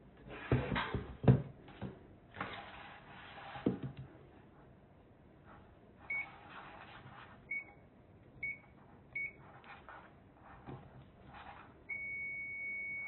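Knocks and rustling of handling, then a digital multimeter's continuity beeper chirping four times briefly and then sounding one steady beep for over a second near the end: the fuse is being tested and conducts, a sign the fuse is good.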